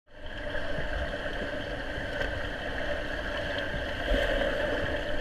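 A steady mechanical hum over a muffled low rumble, as heard by a microphone underwater in a swimming pool.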